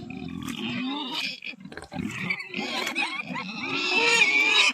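Several pigs grunting and squealing, the calls getting louder and shriller toward the end.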